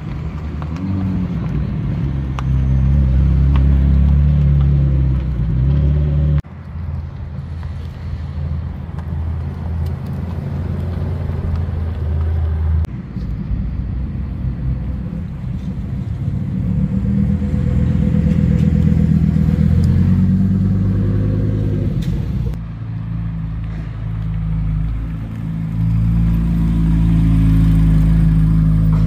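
Sports car engines running in a series of short clips that cut abruptly every few seconds, mostly idling steadily; in one, the engine note climbs as the car revs or pulls away, then drops off.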